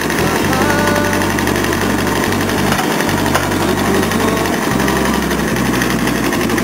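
Clay brick making machine running under its drive engine: a steady mechanical drone with a fast, even pulsing.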